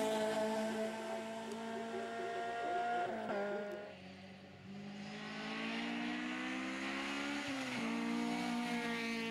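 Honda Integra race car's four-cylinder engine pulling hard at high revs, with an upshift about three seconds in. It fades briefly, then climbs in pitch through a gear and shifts up again near the end.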